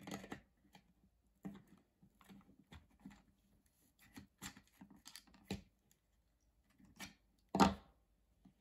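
Needle-nose pliers clicking and scraping against the nozzle of a Stanley hot glue gun in scattered small clicks. Near the end comes a louder clack as the metal pliers are put down on the workbench.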